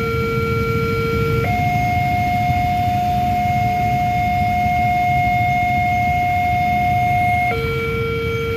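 Railway level-crossing warning siren sounding in a faulty pattern, which the title calls an error. It starts on a lower tone, switches to a higher steady tone about a second and a half in, holds it for about six seconds, then drops back to the lower tone near the end. A low rumble runs underneath.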